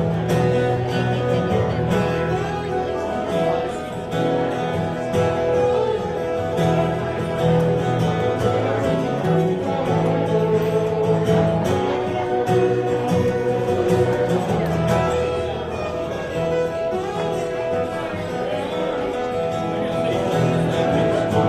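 Live band playing an instrumental break in a country song: acoustic guitar strumming under a held lead melody.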